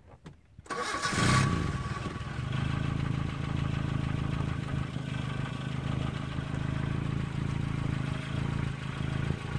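1977 Honda Civic CVCC's four-cylinder engine starting: it catches a little under a second in, revs up briefly, then settles into a steady idle.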